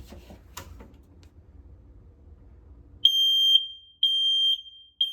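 Home smoke alarm sounding: a loud, high-pitched piezo beep in half-second pulses about a second apart, starting about three seconds in, after a few faint handling clicks.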